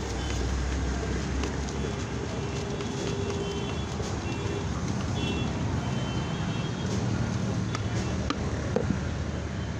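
Steady street traffic noise: engines running and vehicles passing, with faint high tones and a few light clicks late on.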